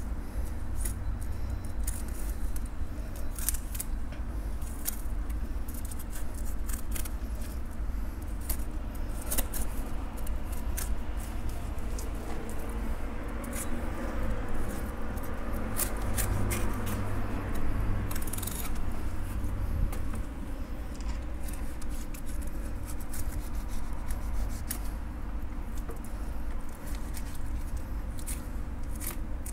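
Filleting knife ticking and scraping along the fin rays and backbone of a skinned horse-face filefish as the fillet is cut away on a wooden board: an irregular scatter of crisp clicks over a steady low hum.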